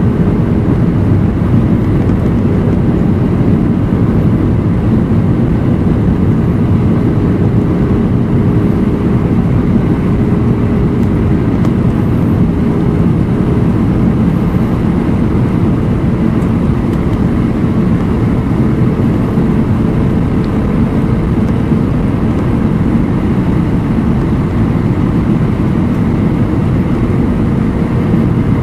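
Steady in-flight cabin noise of an Airbus A319-132 heard from a window seat beside the wing: rushing airflow and the drone of its IAE V2500 turbofan engines, a deep, even rumble. A faint hum under it fades out about halfway through.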